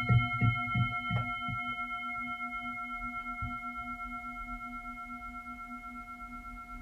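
A singing bowl ringing on and slowly dying away, its low tone wavering, marking the start of a relaxation session. A rhythmic musical beat fades out in the first second or so.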